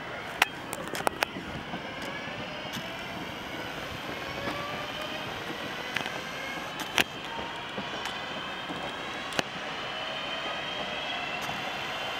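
Northern Class 323 electric multiple unit pulling away, its traction motors giving a whine that rises slowly in pitch as it accelerates, over a steady rumble of wheels on rail, with a few sharp clicks.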